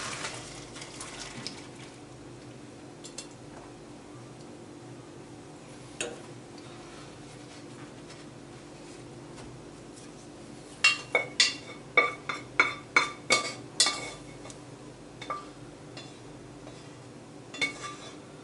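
Metal cookware clinking and knocking as boiled pasta is drained. A few scattered clinks give way past the middle to a quick run of about a dozen sharp metallic clinks, over a steady low hum.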